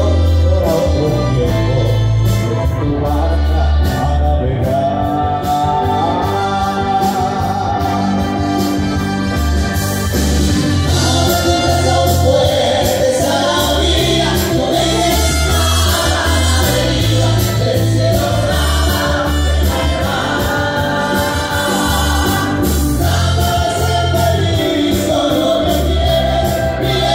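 Orchestra with singers performing a song live, carried by a strong, steady bass line.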